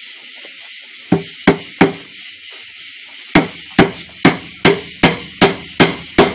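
Hammer driving a nail: three blows about a second in, then a steady run of blows about two and a half a second from about three seconds in, over a steady high hiss.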